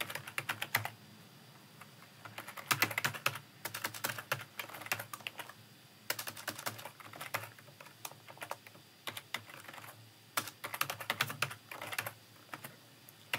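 Computer keyboard typing: runs of quick keystroke clicks in bursts, broken by short pauses.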